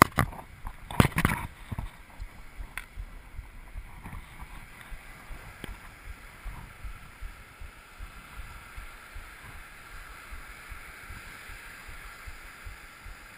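Surf washing onto a sand beach with wind on the microphone, a steady rushing noise, with a few sharp knocks of handling about a second in.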